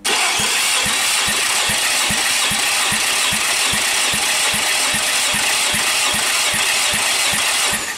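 Infiniti VQ35HR 3.5-litre V6 being cranked over by its starter during a compression test of cylinder one: a steady loud whir with an even low pulse about two and a half times a second as the tested cylinder comes up on compression. It stops shortly before the end, with the gauge reading 14 kg/cm².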